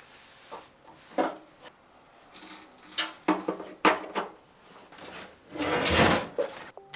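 Scattered clunks, knocks and scrapes of tools and parts being handled during an engine teardown, with a longer, louder scraping rush about five and a half seconds in.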